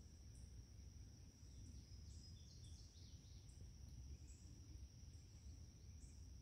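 Faint garden ambience: birds chirping in short high calls about once a second, with a quick run of falling chirps a couple of seconds in, over a steady high whine and a low rumble.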